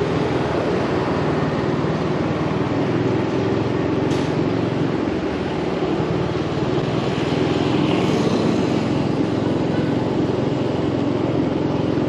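Steady running hum of motorbike engines in city street traffic.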